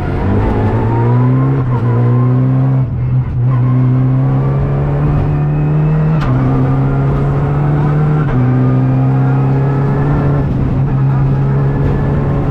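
Renault Clio Rally5's turbocharged 1.3-litre four-cylinder engine at full throttle, heard from inside the cabin. Its pitch climbs and drops back at each upshift, about three, six and eight seconds in. There is a sharp knock near the six-second shift.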